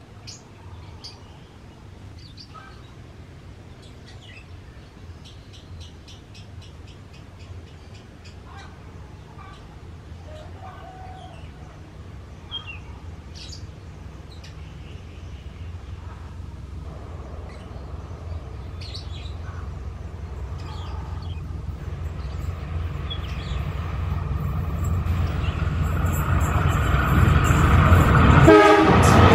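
Diesel-electric locomotive approaching with a steady low engine hum that grows louder throughout, ending in the loud rush of the train arriving close by. Birds chirp in the first half.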